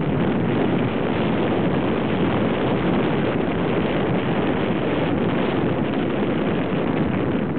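Steady wind buffeting on the microphone of a moving motorbike, mixed with the bike's running and road noise.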